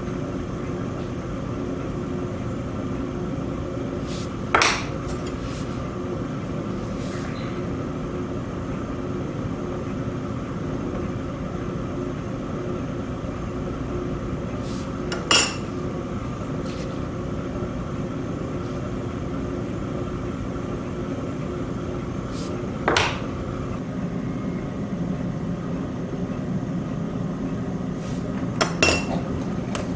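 Electric potter's wheel running with a steady motor hum. Four sharp metallic clinks sound over it, the last a quick double near the end.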